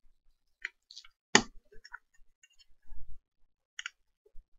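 Small metal clicks and scrapes of a slim pointed tool prying at a C-clip on a screw post of an electronics case, a few separate ticks with the sharpest about a second and a half in. A soft low bump from handling comes about three seconds in.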